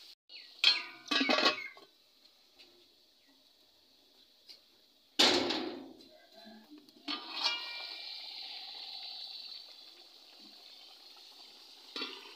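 Metal lid clanking against a cooking pot as it is covered. There are two ringing clanks about a second in, a louder knock about five seconds in and another ringing clank about seven seconds in, followed by a faint steady hiss.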